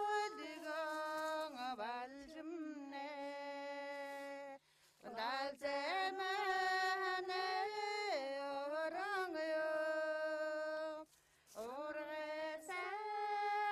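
A single woman's voice singing slow, long-held notes that bend and waver in pitch, with two short breaks for breath.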